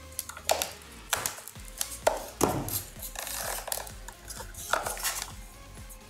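Plastic case of a laptop charger brick being pried open along its glued seam with a thin flat blade, the glue softened with thinner: a string of sharp cracks and clicks with a stretch of scraping about three seconds in.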